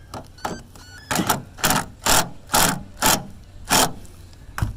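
Ratchet wrench tightening a battery cable terminal clamp: six quick ratcheting strokes, about two a second, then a single sharp knock near the end.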